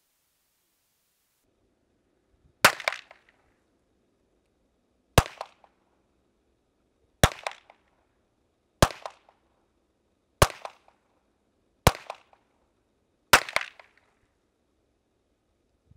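Pistol fired seven times in a slow, steady string, one shot every one and a half to two and a half seconds. Each sharp crack has a short echo.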